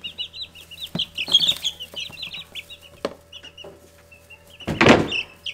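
Young Easter egger chicks peeping: rapid short, high chirps several a second, thinning out after the first couple of seconds. A brief loud burst of noise about five seconds in.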